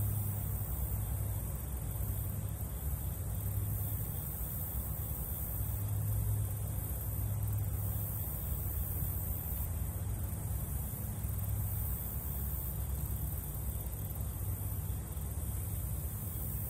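Steady outdoor background noise: a low rumble that swells and eases slowly, under a thin, steady high hiss.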